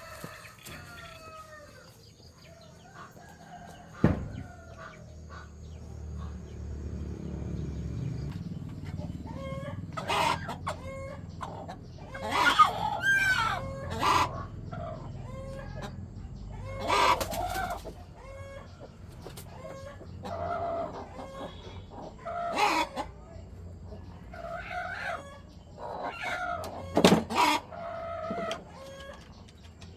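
Chickens clucking and calling in irregular loud bouts, with a rooster crowing among them. A single sharp knock about four seconds in.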